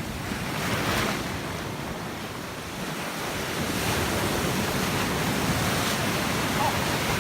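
Ocean surf washing onto a beach, a steady rush of breaking waves that swells and eases, with wind buffeting the microphone.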